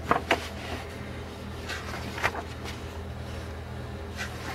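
Pages of a large paperback coloring book being handled and turned: a few short papery rustles and taps, two near the start, one about two seconds in and one near the end, over a low steady hum.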